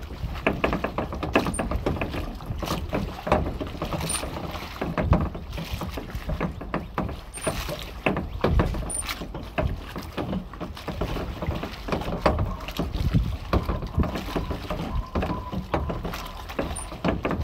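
Water splashing and sloshing in irregular waves: a sea sound effect.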